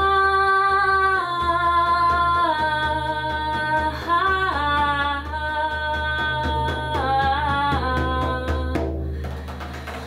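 A woman singing long, wordless held notes that step up and down in pitch, over a steady low drone; the voice breaks off about nine seconds in.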